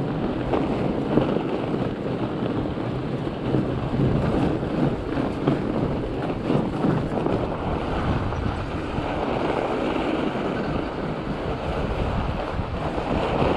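Fat bike riding over packed snow: a steady rushing noise of the wide tyres rolling on snow, with wind buffeting the microphone.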